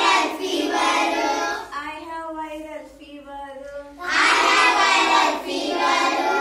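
Group of children singing an action rhyme together. There are loud lines at the start and again about four seconds in, with a quieter single voice singing between them.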